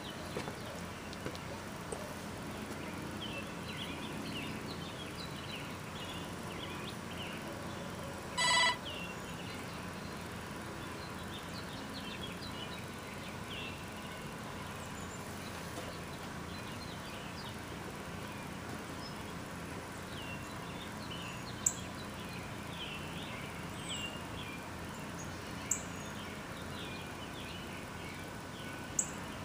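Outdoor ambience: small birds chirping on and off over a steady background hiss, with one short electronic beep about eight and a half seconds in.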